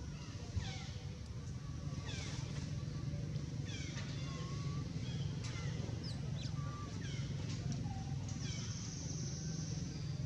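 Baby long-tailed macaque giving short, high crying squeals that fall in pitch, about one every second or two, over a steady low hum.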